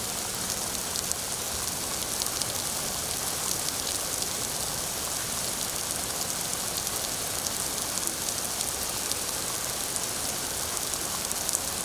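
Steady rain falling, a dense even hiss with many small drop patters and no thunder.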